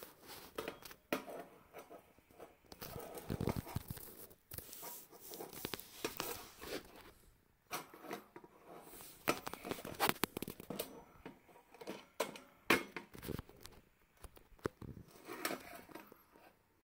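Handling noise from the gas burner assembly's metal manifold being turned over in the hand close to the phone's microphone: irregular scrapes and light clicks with short pauses.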